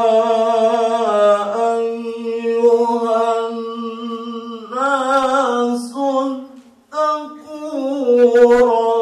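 A man chanting Quran recitation (tilawah) unaccompanied into a microphone, in long held melodic notes with ornamented, wavering turns. There is a short breath pause about seven seconds in.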